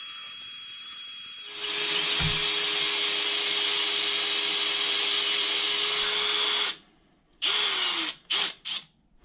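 Electric drill with a 6 mm masonry bit, hammer action off, boring a hole through a ceramic wall tile. It runs slowly at first and speeds up and gets louder about a second and a half in. It stops suddenly around seven seconds in, then gives a few short bursts.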